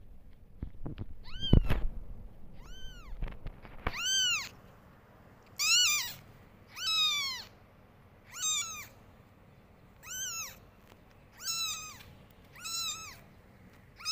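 Newborn kitten mewing: about nine high, thin cries, each rising then falling, roughly a second and a half apart. A couple of dull bumps come near the start.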